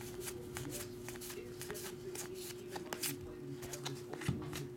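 Pokémon trading cards being flipped through by hand, one after another, with the card edges sliding and snapping against each other in quick, irregular clicks.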